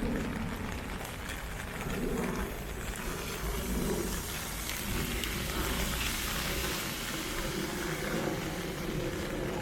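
Heavy typhoon rain falling steadily, with a low rumble underneath.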